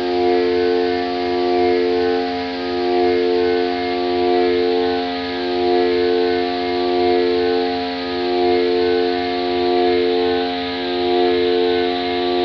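Korg Volca Modular synthesizer drone: a chord of steady held tones with a hiss above it, swelling and dipping in loudness about every two seconds.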